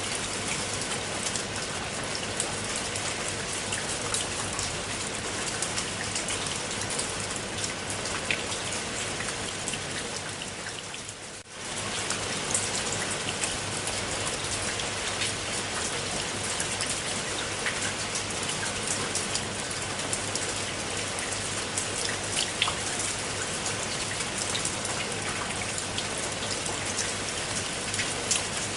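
Steady rain falling on a pool of water: an even hiss dotted with many small drop splashes. It briefly fades down and comes back about eleven seconds in.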